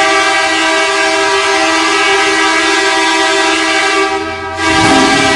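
Real ice-hockey arena goal horn sounding one long, loud, steady blast with several notes held together. It fades out about four seconds in, and the goal song with a beat starts near the end.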